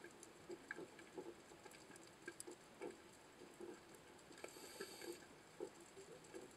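Faint underwater ambience picked up by a camera below the surface: scattered small clicks and crackles throughout, with a brief hiss about four and a half seconds in.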